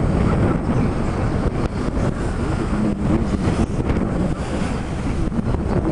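Wind buffeting the microphone on a sailboat under sail, a steady low rumble with water rushing and slapping along the hull beneath it.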